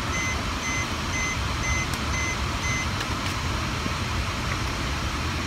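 Vacuum cleaner running steadily while its hose and wand are used on a car's interior. A high electronic beep repeats about twice a second over it and stops about three seconds in.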